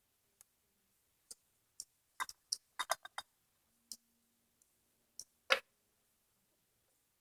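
Scattered sharp metallic clicks and clinks, a quick cluster of them about two to three seconds in and the loudest a little past five seconds: metal engine parts and tools being handled during timing-chain and cam work on a 150cc Chinese engine head.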